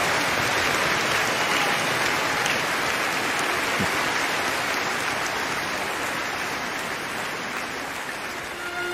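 A large concert audience applauding, an even wash of clapping that slowly dies down near the end.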